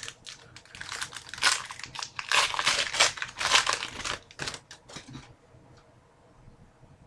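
A hockey card pack wrapper crinkling as it is torn open and handled, in a loud run of crackles from about a second in that stops about five seconds in.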